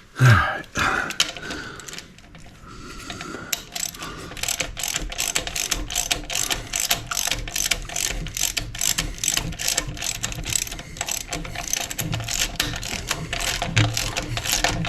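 Hand ratchet wrench clicking rapidly as a bolt is run in on the engine, after a single knock right at the start.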